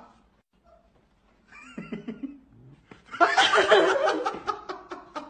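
Human laughter: a burst of rapid, pulsing laughs about three seconds in, lasting around two seconds. A short wavering pitched sound comes just before it, near two seconds.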